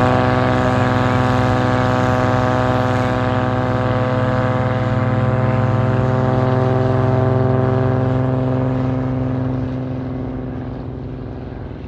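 Kitfox STOL light aircraft's engine and propeller at full throttle on a drag-race takeoff run, a steady, strongly pitched drone that fades over the last couple of seconds as the plane lifts off and pulls away.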